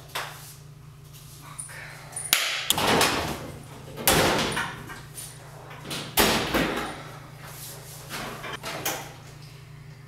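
Kitchen cupboard doors and drawers being banged open and shut: several sharp knocks and slams a second or two apart, over a low steady hum.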